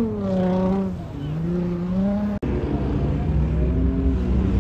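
Dodge Charger's engine revving up and down as the car slides on dirt. About two and a half seconds in, an abrupt cut gives way to a lifted pickup truck's engine running and revving as it churns through a mud pit, with more low rumble.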